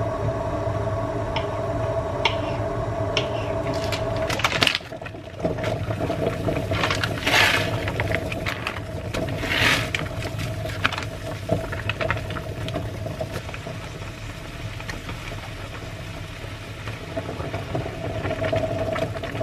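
Pot of instant noodles and sausages boiling on the hob under a steady hum, with the crinkle of a plastic noodle packet and foil sauce sachets being handled and emptied over the pot around the middle.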